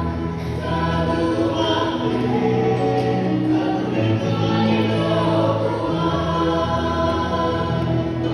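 A choir singing in several parts, holding long chords that change every second or so without a break.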